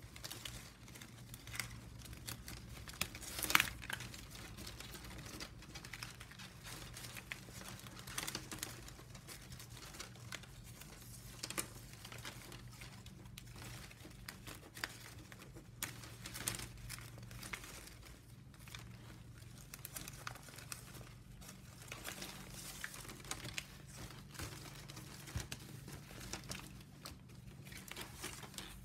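Plastic packaging strapping band strips crinkling and clicking as they are handled and woven by hand. The crackles are irregular, the sharpest a few seconds in, over a low steady hum.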